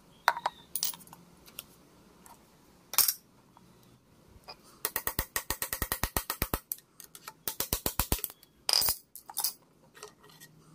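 Metal tools clicking and clinking against the cast-iron underside of an old Singer sewing machine as its parts are loosened. The middle holds two runs of rapid, even clicking, about ten a second, with sharper single clinks around them.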